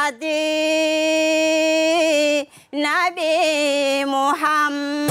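A woman singing a deba, the Mahoran Islamic devotional song, solo and unaccompanied: a long held note, a brief breath about halfway, then a wavering ornamented run that settles onto another held note.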